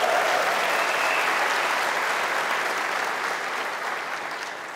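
Audience applauding, loud at first and then slowly dying away near the end.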